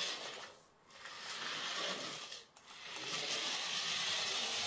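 Battery-powered toy RC mini truck's small electric motor and plastic gears whirring as it drives and spins on a wooden floor. It cuts out briefly twice, about a second in and again about two and a half seconds in.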